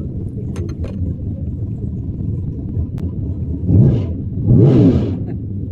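Car engines rumbling steadily, with two short revs about four and five seconds in, the pitch rising and falling back.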